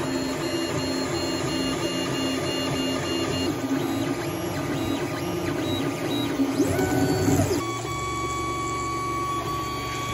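Creality CR20-Pro 3D printer printing: the stepper motors whine in steady tones that change pitch from move to move. About two-thirds of the way through come a few quick rising and falling tones, and then the sound settles into a steadier hum with one high tone.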